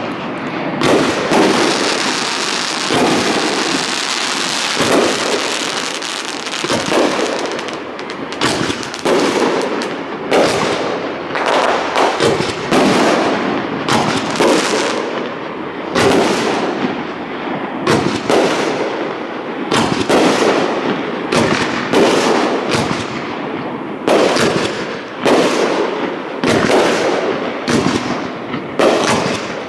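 Aerial firework shells bursting in rapid succession, a sharp bang every second or less, each trailing off, with a dense hiss beneath the bangs for the first several seconds.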